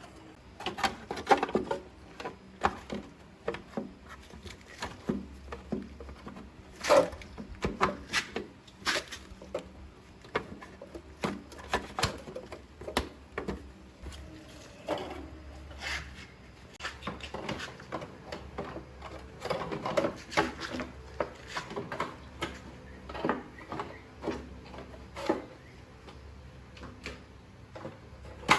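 Objects being handled by hand: irregular clicks and knocks, a few sharper than the rest, with some rubbing in between.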